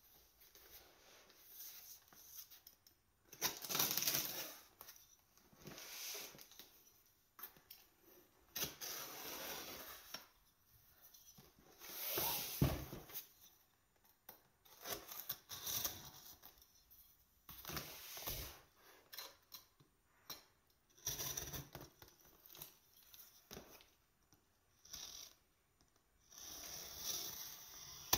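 A taped cardboard shipping box being handled and opened: irregular bursts of packing tape tearing and cardboard scraping and rustling, with one sharper knock about midway.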